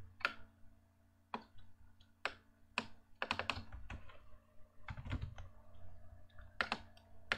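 Computer keyboard and mouse clicks: a scattered, irregular series of sharp taps as a short entry is typed into a dialog box, over a faint steady low hum.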